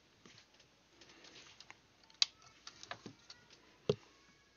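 Faint, scattered plastic clicks and taps as a smart plug is handled and pushed into a power strip's outlet, with two sharper clicks about two seconds in and near the end.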